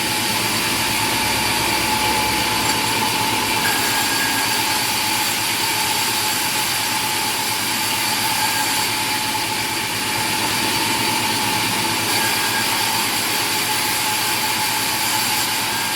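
A machine running steadily: an even rushing noise with a constant whine.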